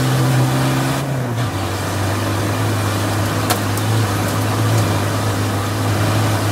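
Land Rover Defender 90 Td5's tuned five-cylinder turbodiesel running hard under load, heard from inside the race car's cab, with gravel and wind noise over it. The engine note steps down about one and a half seconds in, then holds steady.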